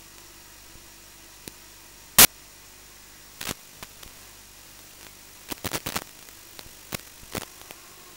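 Steady hiss of static from an analog FPV video receiver's audio channel, broken by sharp crackling pops as the radio link breaks up. The loudest pop comes about two seconds in, with a quick cluster of them a little past halfway.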